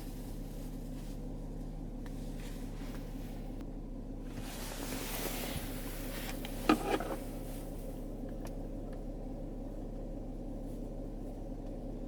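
Steady low hum of the running car, with a soft hiss swelling about five seconds in and a single sharp click just before the middle.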